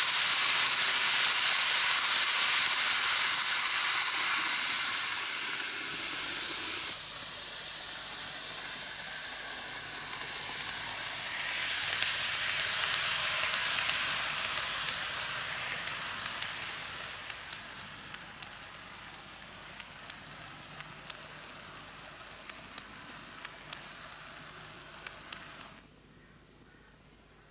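N gauge model train (Keikyu New 1000 series) running on model track: a hissing whir of wheels and motor that swells and fades as the cars pass. In the quieter stretch it carries occasional light clicks, and it stops abruptly near the end as the train comes to a halt.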